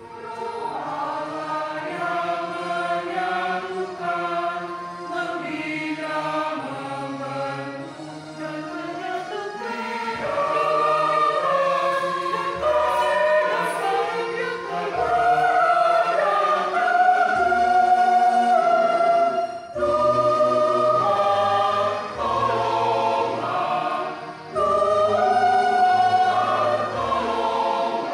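Mixed choir singing a hymn in parts, holding long notes that move together from chord to chord, and swelling louder about a third of the way in.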